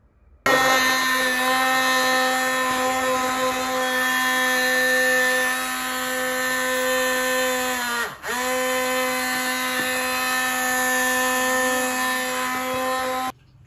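Hand-held stick blender running steadily with a motor whine, puréeing a thick momo achar of tomatoes, roasted soybean powder and sesame paste with a little water in a glass bowl. It starts about half a second in, its pitch dips and recovers briefly about eight seconds in, and it stops just before the end.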